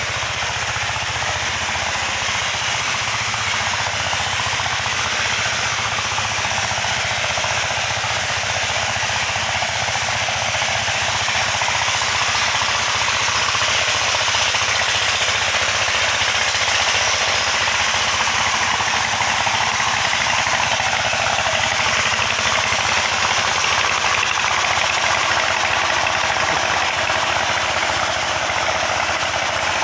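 A stationary engine-driven water pump running steadily at the mining pit, its motor chugging with a fast, even beat.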